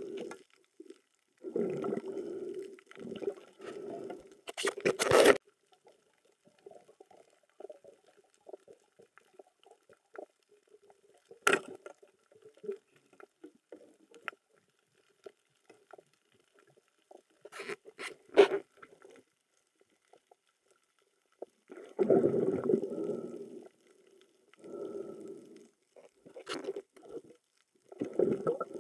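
Muffled underwater handling noise: irregular gurgling bursts and scrapes, broken by several sharp clicks and knocks, as speared fish and a squid are handled on a spear shaft.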